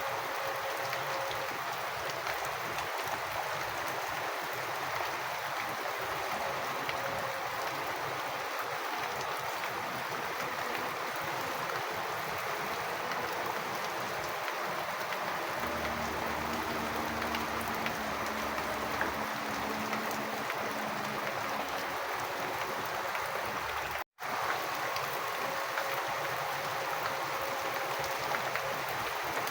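Steady rain with running rainwater: an even hiss full of fine drop patter. A low steady hum joins about halfway, and all sound cuts out for an instant shortly before the end.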